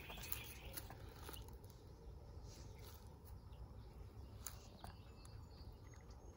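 Faint, sparse peeps from a huddle of napping chicks over a low steady background rumble.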